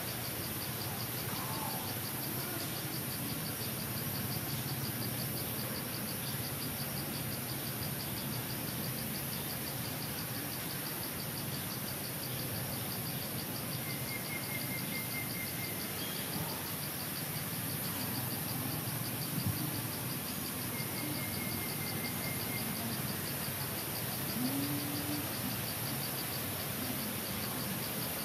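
Steady chorus of insects in forest, a rapid pulsing buzz high in pitch over a constant hiss. Two brief high trills stand out, about 14 and 21 seconds in.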